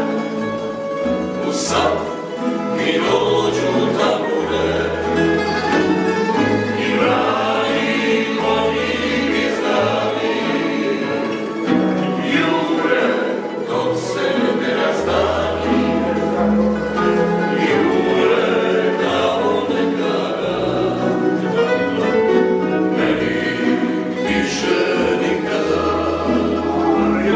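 Slavonian tamburica band of male voices singing together in harmony, accompanied by strummed tamburicas and a plucked berde (bass tamburica) whose low notes change every second or so.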